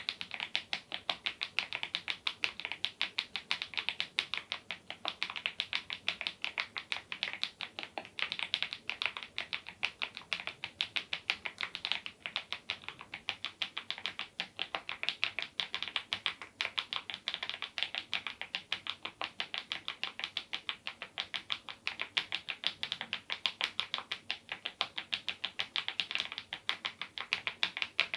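Mechanical keyboard with HMX Cheese switches under KEYTOK Godzilla smile-profile keycaps, typed on steadily and quickly: a dense run of keystroke clacks, about eight to ten a second.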